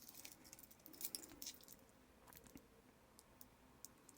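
Near silence with faint rustling and small clicks in the first second and a half, from handling a new stainless steel watch bracelet still in its plastic wrapping; a few isolated faint ticks follow.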